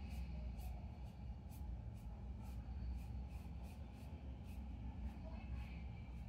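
Paintbrush strokes on paper, faint and scratchy, about two or three strokes a second, over a steady low hum.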